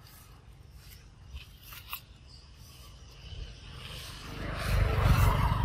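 Rubbing and scraping noise, faint with a few small clicks at first, growing much louder and deeper about four seconds in.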